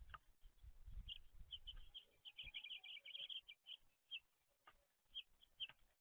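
Small songbirds chirping faintly at a backyard feeder, with a quick run of chirps about two to three and a half seconds in. Low bumps and rumbling sit under the first two seconds.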